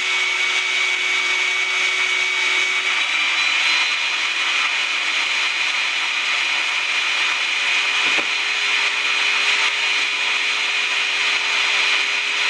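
Shop-Vac wet/dry vacuum running steadily with a high whine, drawing vacuum through a homemade vacuform platen. About three seconds in its pitch steps up slightly as the softened plastic is laid over the platen and seals off the holes. A single short knock about eight seconds in.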